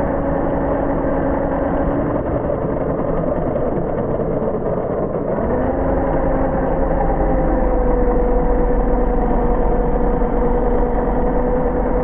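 An engine running steadily, with a held hum whose pitch shifts about five seconds in and then sinks slightly.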